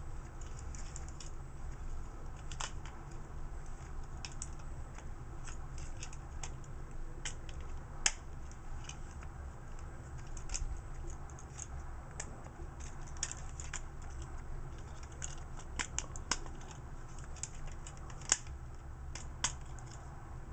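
Plastic parts of a Transformers Deluxe Class Sideswipe action figure clicking and rattling as they are folded and snapped into car mode: irregular light clicks, a few sharper snaps, over a steady low hum.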